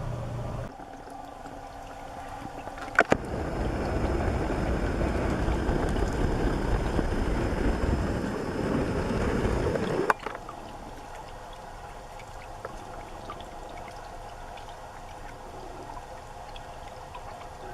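Water running and gurgling, cut into a few segments: a louder, rumbling stretch that starts with a couple of sharp clicks about three seconds in and stops abruptly about ten seconds in, then quieter, steady trickling.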